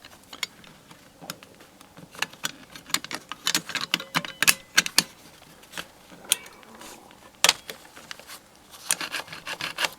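Irregular clicks and clinks of a door lock being put back together: metal lock parts and a screwdriver knocking against the lock case as the side plate is fitted back on over the spring.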